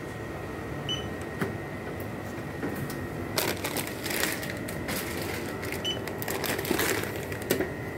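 Shop checkout counter sounds: two short electronic beeps about five seconds apart, amid rustling and knocks of groceries and packaging being handled.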